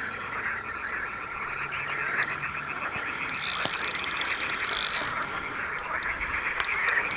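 Fishing reel being wound, its mechanism clicking, with a hiss of about two seconds starting about three seconds in. Frogs croak steadily in the background.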